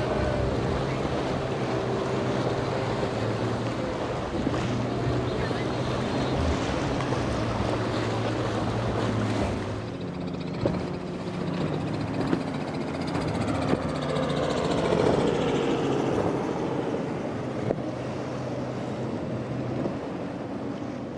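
Outboard engines of center-console boats running through rough, choppy water, mixed with splashing waves and wind on the microphone: first a single Yamaha 250 outboard, then, from about halfway, twin Evinrude outboards whose engine note climbs and swells for a couple of seconds.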